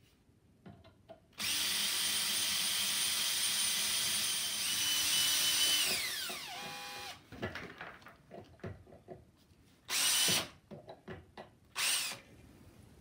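Drill boring a hole in a lathe tool bar for an 8-32 tap: it starts about a second and a half in, runs steadily, then is switched off and its whine falls as it spins down. A few light knocks follow, then two short bursts of noise near the end.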